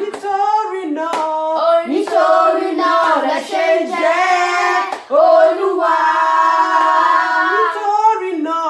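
A small group of women's and children's voices singing a Yoruba praise chorus, with hand claps.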